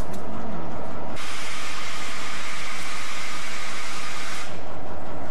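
Compressed air hissing loudly from an MRS SD38 diesel locomotive's air brake system, switching on about a second in and cutting off sharply about three seconds later, over the locomotive's steady low diesel hum.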